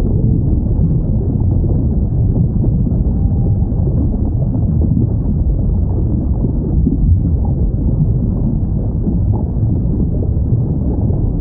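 Steady low underwater rumble of ocean ambience, with a couple of faint short whale calls, one about three seconds in and one past the middle.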